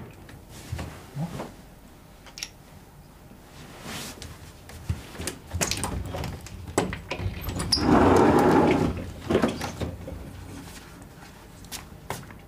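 Sliding glass balcony door being worked open: a run of clicks and knocks from the latch and frame, then about a second of sliding noise near the middle, the loudest sound, followed by a few lighter knocks.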